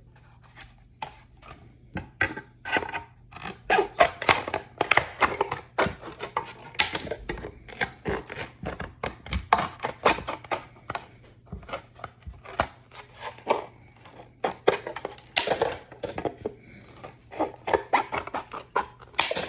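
Scissors making quick, irregular snips as they trim the excess edge off a thin plastic TIE pilot armour part, a few cuts a second.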